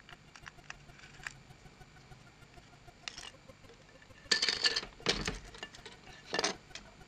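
Hard plastic headphone earcup parts and a circuit board being handled and knocked together as the board is lifted out of the housing: a few faint clicks at first, then clattering bursts of plastic clicks and rattles in the last three seconds.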